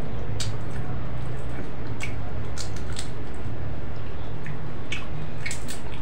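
Oyster eating: fingers pulling the meat from the shells and the mouth chewing, heard as scattered short clicks and smacks over a steady low hum.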